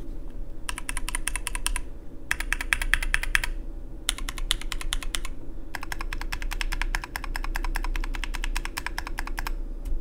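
Fast typing on a 40% aluminium mechanical keyboard with lubed and filmed Kiwi tactile switches and PBT keycaps: rapid keystrokes in four runs with short pauses between, the longest from about six seconds in to near the end.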